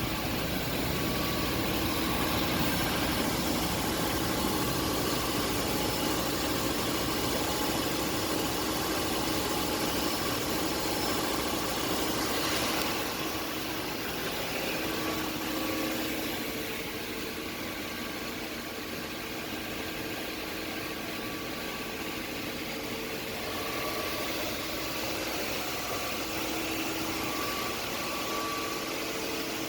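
1997 Toyota Land Cruiser engine idling steadily with the engine running to burp air out of the cooling system after a thermostat replacement. The level dips slightly a little under halfway through.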